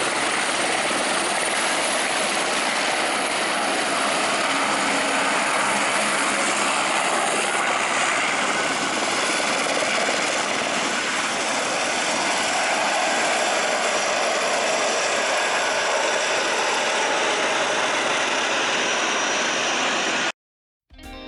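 Eurocopter AS350 B3 helicopter with its Turbomeca Arriel turbine running, a steady, even rush of rotor and engine noise. It cuts off abruptly near the end.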